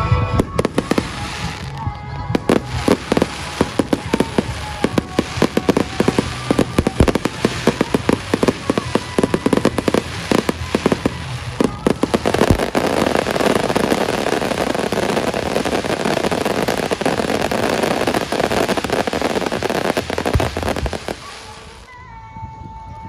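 Fireworks going off in a rapid run of sharp bangs and crackles. About halfway through this gives way to a dense, continuous crackling that dies away shortly before the end.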